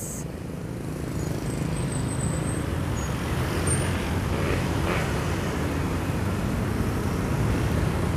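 Road traffic at a junction: a steady rumble of car and motorcycle engines and tyres.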